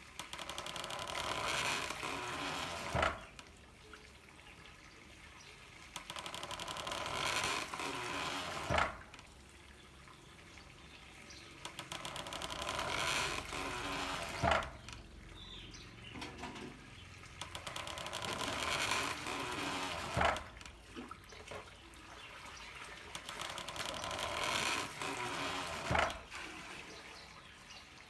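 Handmade water-powered corn mill working in a steady cycle: running water splashes and builds for a few seconds, then the mill's pounder lands with a sharp thump. This repeats evenly about every six seconds, five thumps in all.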